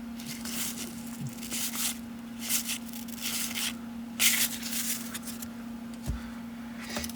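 Baseball cards being handled and flipped through by hand: short, irregular rustling and sliding sounds, over a steady low electrical hum.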